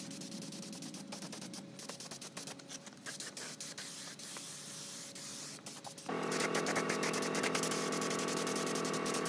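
Gravity-feed paint spray gun hissing as it sprays paint. About six seconds in, the sound steps up louder and a steady machine hum joins the hiss.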